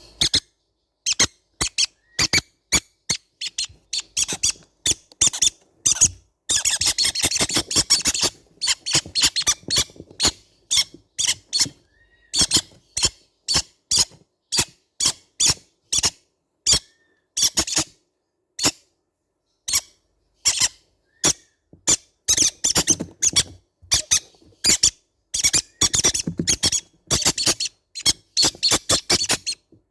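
Baby green-cheeked conures calling in short, sharp, high-pitched squeaks, a few each second. Several bursts of rapid chattering come in between, one about seven seconds in and more near the end.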